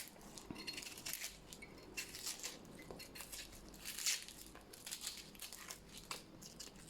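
Dry, papery outer skin of a red onion being peeled off by hand: faint, irregular crinkling and crackling, with a few sharper crackles.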